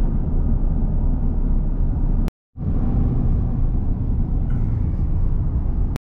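Steady rumble of road and wind noise heard from inside a moving car at highway speed, heaviest in the low end. It cuts out for a moment about two and a half seconds in, then resumes.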